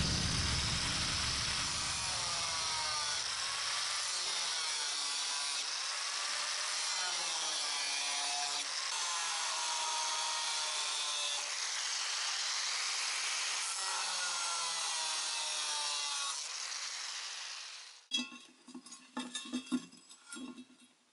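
Angle grinder with a cutting disc cutting through sheet steel: a steady high grinding whine whose pitch wavers as the disc bites. The whine dies away near the end and gives way to a few light, scattered knocks.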